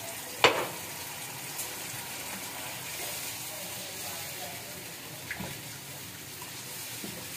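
Half a cup of water added to a pan of frying spiced tomato masala, hissing and bubbling steadily on the heat. A single sharp knock about half a second in.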